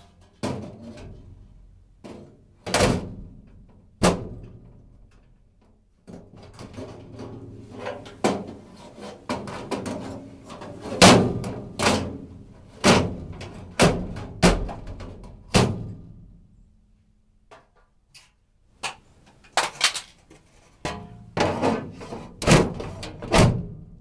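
Furnace cover being pushed and knocked back into place: a long run of irregular knocks and thunks, some in quick clusters, with a quieter stretch about two-thirds of the way through.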